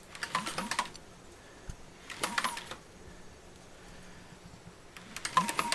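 Ticking, clattering noise from the timing chain and valve train of a rebuilt Mazda 3.0L DOHC 24-valve V6 as the crankshaft is turned by hand with a breaker bar. It comes in three short bursts: at the start, about two seconds in, and near the end. No oil has yet reached the cams, and the noise may come from the valve train being a little dry.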